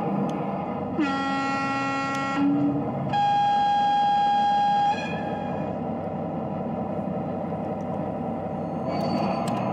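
Sound module of a self-built 5-inch-gauge MaK 1200 diesel locomotive model playing a diesel engine idling steadily. About a second in it sounds two horn blasts: a lower one of about a second and a half, then a louder, higher one of about two seconds.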